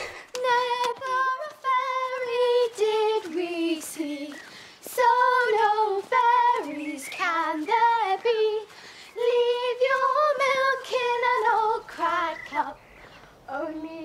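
A young girl singing a tune alone, in short phrases with some notes held, pausing briefly between lines.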